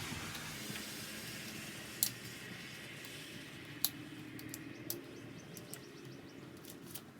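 A few sharp, light clicks and ticks from hand tools and small engine parts such as washers being handled on a VW engine case, one about two seconds in and another near four seconds, over a faint steady hiss.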